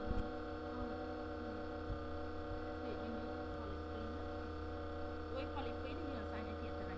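Steady electrical mains hum with many overtones on the recording, with a couple of sharp clicks just after the start.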